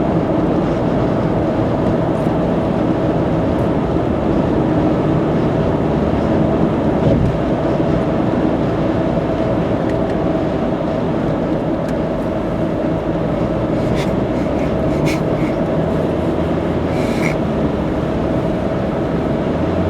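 Steady road and tyre noise with engine drone from a car cruising on an expressway, heard from inside the cabin, with a faint steady whine and a few faint clicks about three quarters of the way through.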